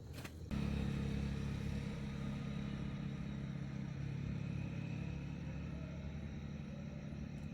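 An engine running steadily at idle, starting abruptly about half a second in.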